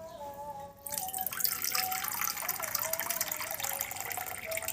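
Water being poured from a small bowl into a pot, splashing steadily from about a second in.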